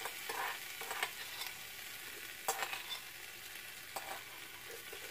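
Herb pancakes sizzling steadily in the pan, with a metal spoon clinking and scraping in a stoneware bowl four times.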